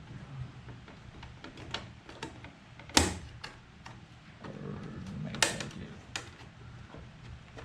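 Light clicks and taps of parts being handled while a backup camera is fitted at a truck's license plate, with two sharper knocks, about three seconds in and about five and a half seconds in.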